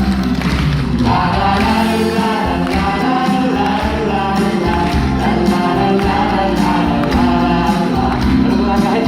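A musical-theatre cast singing together over live band accompaniment.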